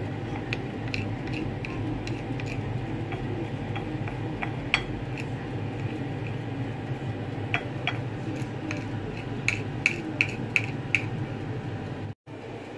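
Metal spoon stirring batter in a ceramic plate, clinking against the plate now and then, with a quicker run of clinks near the end. A steady low hum runs underneath.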